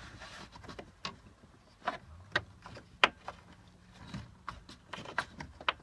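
Scattered light clicks and knocks as a toggle switch and its wires are worked by hand up out from behind a dashboard, about one knock a second.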